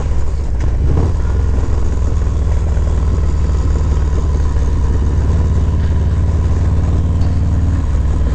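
Harley-Davidson Softail Fat Bob's V-twin engine running steadily under way, with wind rushing past.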